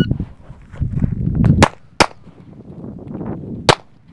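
Three pistol shots: two in quick succession about a second and a half in, then a third a little under two seconds later, fired during a timed run-and-gun drill.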